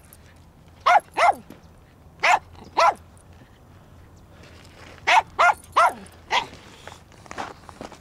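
Small white terrier barking: eight short barks in three bunches, two, then two, then four. She is asking for a rock to be thrown for her to chase.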